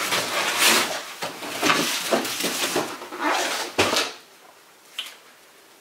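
A large cardboard shipping box dragged across a tabletop and lifted down, the cardboard scraping and rustling, ending in a sharp knock just before four seconds in.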